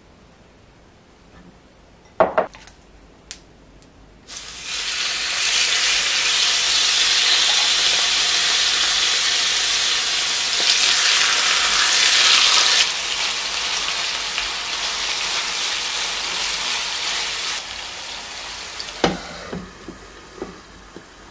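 Marinated chicken thighs sizzling loudly in hot oil in a nonstick frying pan, the hiss starting suddenly about four seconds in after a few short clatters. It eases partway through. About nineteen seconds in there is a sharp clank as a glass lid goes on the pan, and after that the sizzling carries on quieter.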